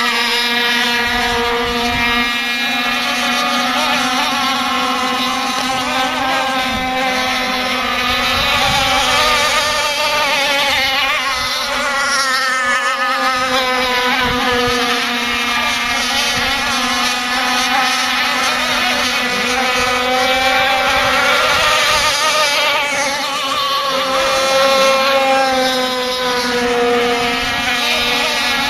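Radio-controlled model speedboat running flat out across the water, a high-pitched engine whine that rises and falls slightly in pitch as the boat turns and passes.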